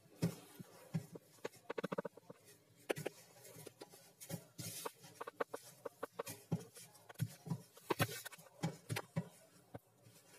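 Hands kneading and squeezing a dough of flour, eggs, oil and milk in a plastic bowl: irregular soft squelches, pats and taps against the bowl.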